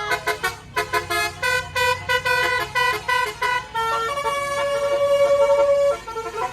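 Multi-tone 'telolet' (basuri) musical vehicle horn playing a tune. It opens with a run of quick staccato toots, then holds longer notes for about two seconds before dropping to quieter notes near the end.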